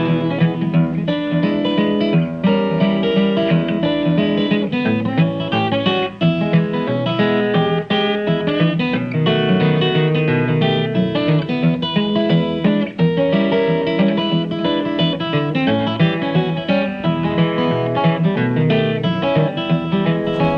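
Background music led by guitar, with quickly changing picked notes.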